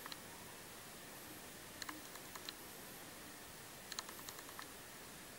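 Faint, quick small clicks in two short clusters, about two seconds in and again about four seconds in, over a low steady hiss: fine metal eyelash-extension tweezers tapping and closing as a lash is isolated and placed.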